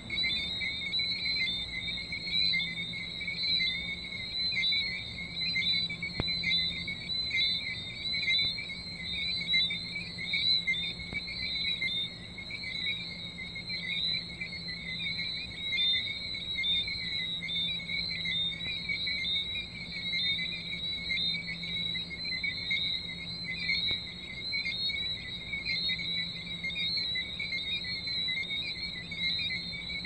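A night chorus of tree frogs: many short chirping whistles overlapping without pause, in two pitch bands, with a steady thin high tone above them.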